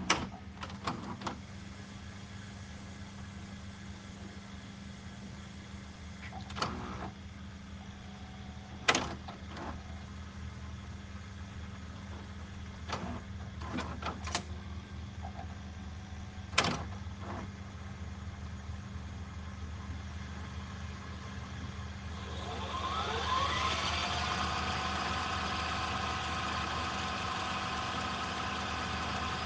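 VCR tape mechanism: a steady hum broken by several sharp mechanical clunks and clicks. About 22 seconds in, a motor spins up in a rising whine and settles into a steady whirr, as when the machine spools the tape at high speed.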